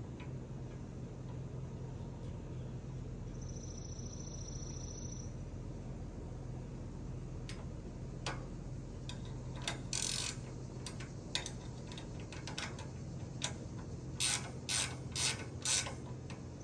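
Green Touch combination rack lock being turned and tightened into its rack: a string of sharp metallic clicks and short ratcheting scrapes, loudest in a cluster near the end, over a steady low hum.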